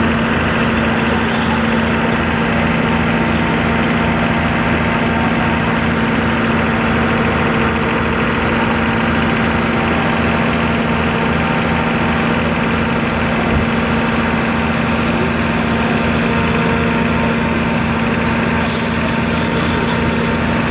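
A fire truck's diesel engine running steadily, with an even low rhythm. A short hiss comes near the end.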